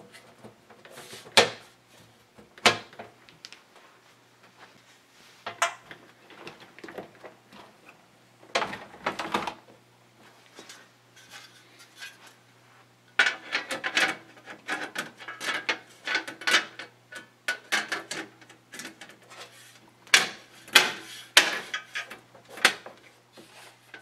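Aluminium side panels of a Case Labs Merlin SM8 computer case being handled and fitted: scattered knocks and clacks of the panel against the case frame, with rubbing and scraping. The clatter is densest about halfway through, with a few sharp knocks near the end.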